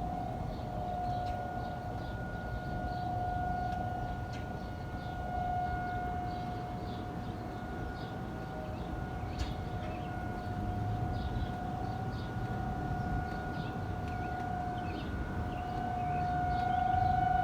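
Outdoor tornado warning siren sounding a steady, unchanging tone. Its loudness swells and fades every few seconds as the siren rotates.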